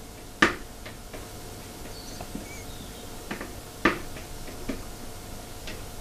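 A spoon knocking and scraping against mixing bowls as whipped cream is scraped from a plastic bowl into a glass one: two sharp knocks, about half a second in and just before four seconds, with lighter clicks between.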